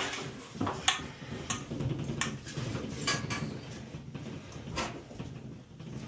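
Scattered metallic clinks and knocks, about half a dozen, with handling rustle, as a steel boiler expansion tank and its threaded fittings are handled and worked loose.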